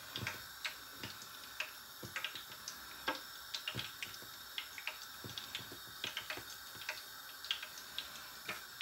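Faint, irregular light taps and clicks of fingers picking cut strips of namak para dough off a wooden board.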